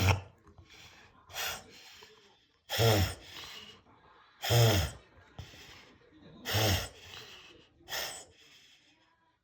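Pembroke Welsh Corgi reverse sneezing: a series of about six loud, forceful inhalations through the nose, one roughly every one and a half to two seconds. It is a reverse-sneeze fit, a spasm of the soft palate, which the owner says soon settled.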